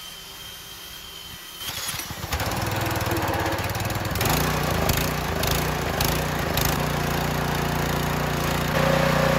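Drill whining as it spins the flywheel of a pressure washer's small OHV engine. About two seconds in, the engine catches, and from about four seconds it runs steadily: it starts after its carburetor was cleaned, with the choke on.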